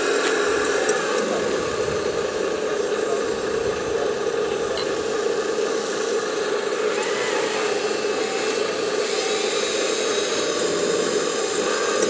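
Radio-controlled scale construction machines at work: the steady whine of a model excavator's and loader's electric drive motors, with higher whines that shift in pitch as the excavator swings and moves its arm.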